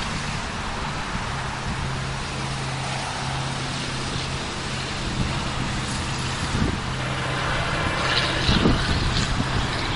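A steady low engine drone under a wash of rushing noise, growing a little louder in the last few seconds, with gusts of wind on the microphone near the end.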